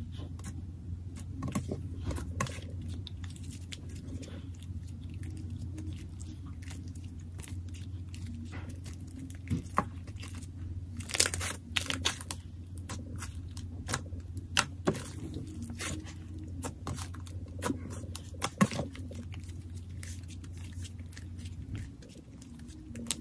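Thick, fluffy frosting-texture slime with sprinkles being squished, poked and stretched by hand, giving irregular sticky clicks, pops and crackles, with a burst of louder ones about halfway through.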